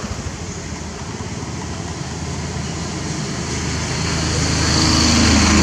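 A motor vehicle's engine running with a steady low hum, growing louder over the last two seconds.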